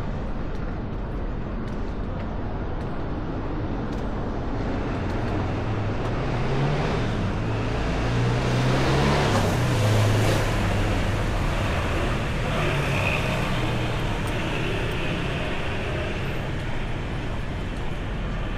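Street traffic noise, with a motor vehicle driving past that swells to its loudest about nine to ten seconds in and then fades.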